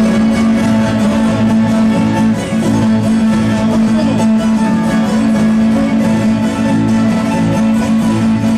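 Live Andean qhashwa carnival music from a stage band, with plucked and bowed strings over a steady beat.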